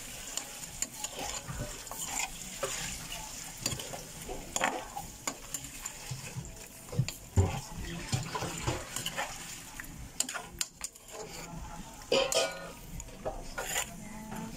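A metal spoon stirring shrimp in a stainless steel pot, clinking and scraping against the pot at irregular moments, loudest about twelve seconds in, over a light sizzle of frying in butter.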